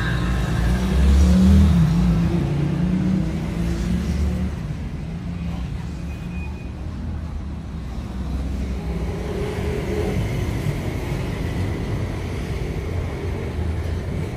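Low, steady rumble of vehicle engines, swelling briefly about a second in.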